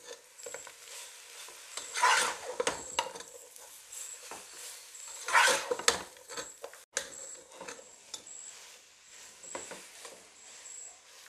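A slotted spatula stirring and scraping noodles and fried chicken around a nonstick pot in irregular strokes, loudest about two seconds in and again around five and a half seconds.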